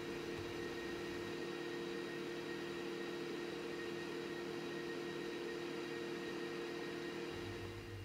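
A homemade thermoelectric (Peltier) fridge's cooling unit running: a steady hum with two held low tones over a hiss. A low rumble joins shortly before the end.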